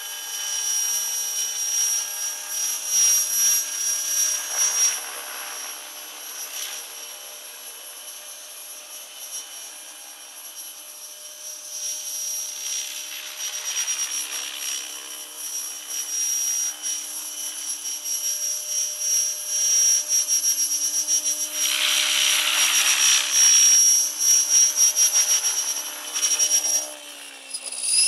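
Radio-controlled model helicopter flying, its rotor blades chopping over a steady high-pitched motor whine and swelling louder and softer as it moves about. Near the end the pitch sags slightly as it settles onto the ground with the rotor still turning.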